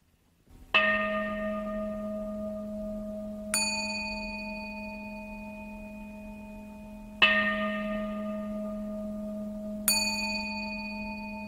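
Bells struck four times at even intervals, alternating between a lower-pitched and a higher-pitched bell. Each strike rings on and dies away slowly over a steady low hum.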